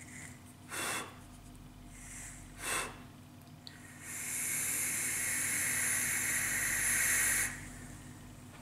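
Long direct-lung draw on a vape atomizer fitted with dual Alien Ni90 coils at 0.16 ohm, firing at about 50–60 watts: a steady airy hiss for about three and a half seconds that cuts off sharply, after two short breathy sounds.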